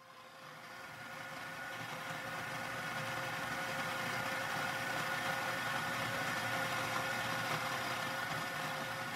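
A steady mechanical hum with a constant whine running through it, fading in over the first couple of seconds and then holding level.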